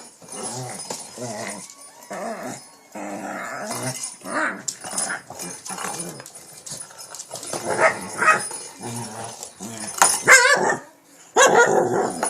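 Shih tzu growling and whining at a cat toy, a string of short vocal bursts in play-aggression. About ten seconds in comes a wavering whine, and near the end a louder outburst.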